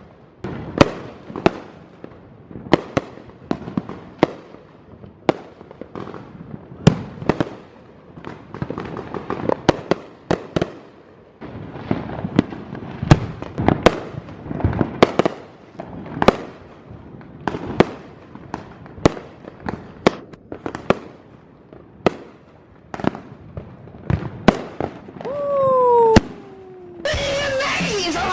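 Street fireworks and firecrackers going off: a long run of sharp bangs at uneven intervals, sometimes several a second, with crackling between them. About 25 seconds in comes a short falling whistle. Music cuts in for the last second or so.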